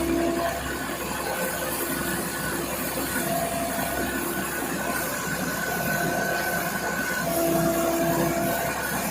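A rice threshing machine running steadily: engine and threshing drum under a rushing hiss of air and straw being blown out, with a few steady whining tones that come and go.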